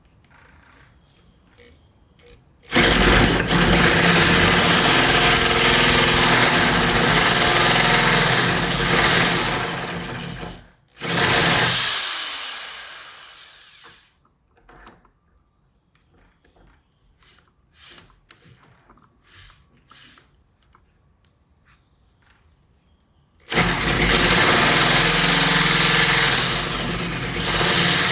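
Electric drill spinning a 1-inch paddle bit, boring into the wood of a door edge to widen the latch hole. It starts about three seconds in and runs for about eight seconds, stops briefly, runs again and winds down, then after a stretch of faint clicks and knocks starts up again near the end.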